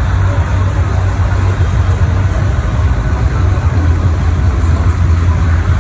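Tractor's diesel engine running steadily at low revs, a continuous low drone.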